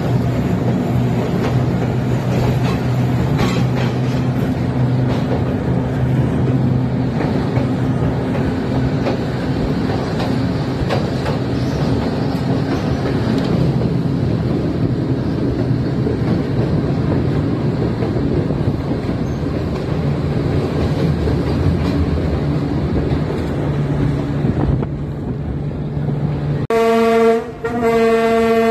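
Train running, heard from aboard a carriage: a steady rumble with a low drone and occasional clicks from the rails. Near the end the TGM6 diesel-hydraulic locomotive sounds its horn, a short blast and then a long one.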